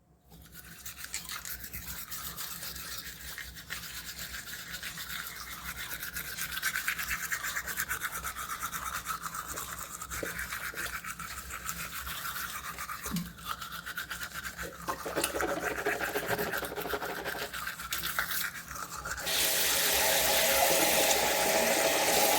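Toothbrush scrubbing teeth in quick back-and-forth strokes, growing louder near the end.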